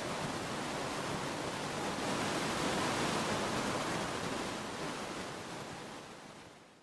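Steady outdoor rushing noise with no distinct events, fading out over the last two seconds or so.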